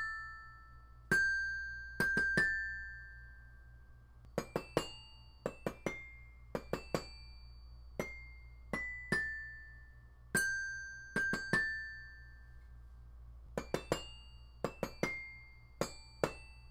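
Quiet music: a sparse tune of single bell-like struck notes, each ringing and fading away, some coming in quick little runs of two or three.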